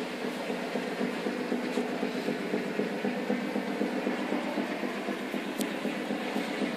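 Steady drone of a ferry's engines and deck machinery, a held hum with a light regular beat about twice a second running through it.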